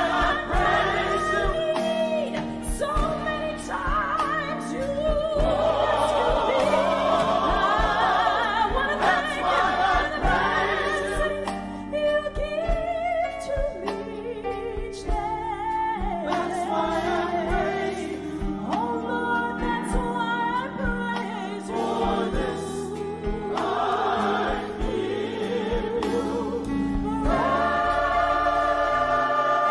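Gospel choir singing in harmony over low sustained accompaniment, the voices holding long notes with vibrato.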